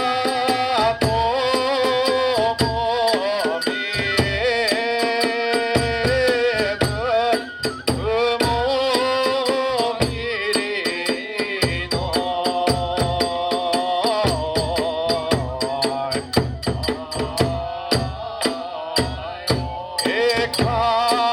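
Hiroshima-style kagura hayashi music: a bamboo flute playing a wavering melody with held notes, over a big drum beaten in a steady rhythm and small hand cymbals clashing rapidly.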